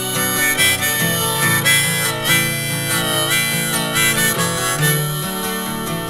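Harmonica playing a melody with bent notes over strummed acoustic guitar, the instrumental intro to a recorded singer-songwriter song.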